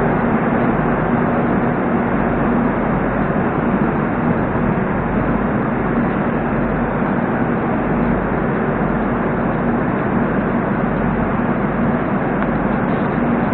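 Moscow Metro 81-740.4 'Rusich' train standing at the platform with its doors open, giving a steady hum and rumble that holds level throughout.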